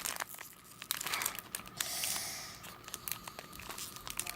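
Foil wrapper of a football card pack crinkling and tearing as it is worked open by hand, with a longer tearing rip about two seconds in.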